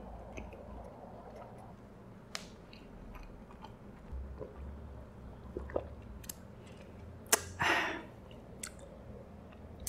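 Close-miked eating sounds: chewing with wet mouth clicks, then sipping a drink through a straw. A short, louder noise comes about three-quarters of the way through.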